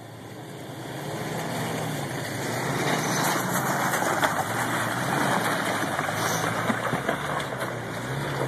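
Jeep Wrangler's engine pulling the 4x4 up a rocky trail at low speed. It gets louder over the first few seconds as the Jeep comes close, and its pitch rises and falls with the throttle. Scattered clicks and knocks come through, typical of tyres crunching over loose rock.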